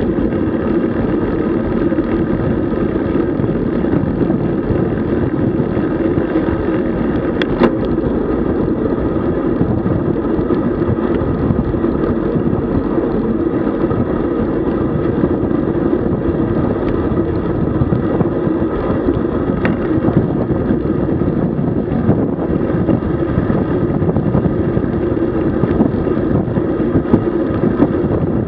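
Steady rushing wind and road noise from riding a road bicycle, with a couple of faint clicks.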